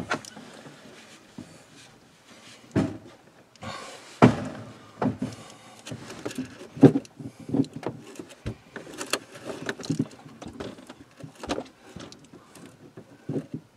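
Irregular knocks, clicks and light scraping from hands working the nut off an RV shower drain fitting under the shower base.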